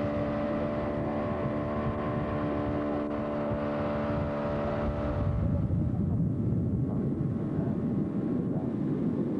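Tow boat's engine running at steady high speed, a droning hum, with wind buffeting the microphone. About five seconds in the hum drops out and only low rumbling wind and water noise remain.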